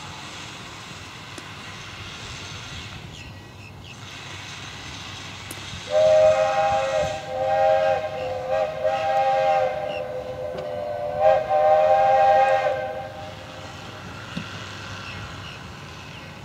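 Steam locomotive chime whistle, several tones sounding together as one chord, blown about six seconds in and held for roughly seven seconds with a few short breaks, over a steady background hiss.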